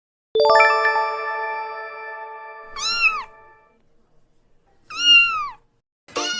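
A bright chime-like chord rings out and slowly fades, then a cat meows twice, each meow rising and falling in pitch.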